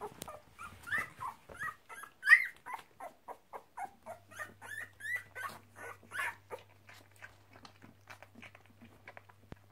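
Young cocker spaniel puppy squeaking and whimpering in a quick string of short high cries, about three a second, growing fainter toward the end.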